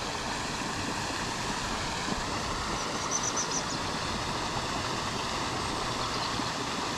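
Pond surface aerator churning and spraying water: a steady, noisy rush of splashing water. A short run of faint, rapid high ticks comes about three seconds in.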